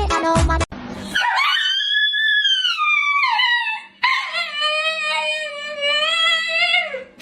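A dog howling: two long drawn-out howls, the first high and wavering, the second lower and steady, sliding down at its end.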